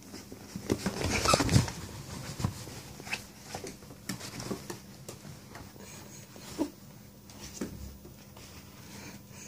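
Yorkshire terrier playing with a toy, making short, irregular dog sounds amid scuffling and clicks. The loudest comes about a second in.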